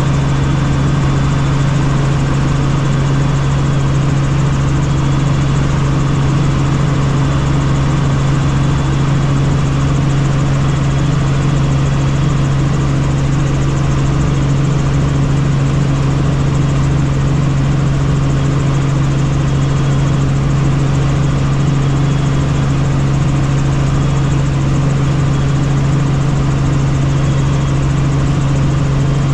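Helicopter in flight: steady engine and rotor drone with a strong low hum and a pulsing rumble beneath it, unchanging throughout.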